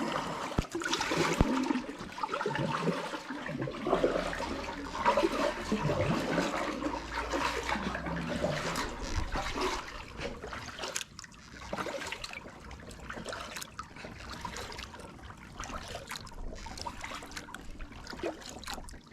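Water trickling and splashing off a kayak paddle as it dips into the water, stroke after stroke.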